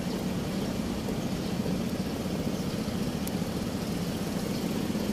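Steady city road traffic: car engines idling and running, with a low hum that holds throughout.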